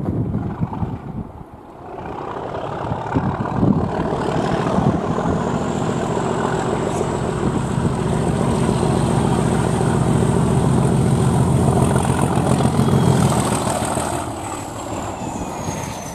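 Class 37 diesel locomotive with its English Electric V12 engine working hard as it approaches, growing louder from about two seconds in. Its high turbocharger whistle drops in pitch near the end as the locomotive passes.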